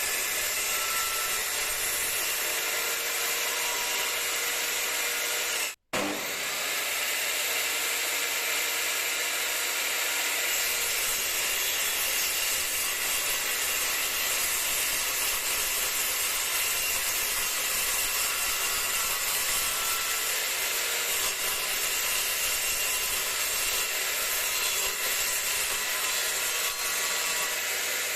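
Parkside PMTS 210 A1 benchtop table saw running steadily and sawing wood. The sound breaks off for an instant about six seconds in.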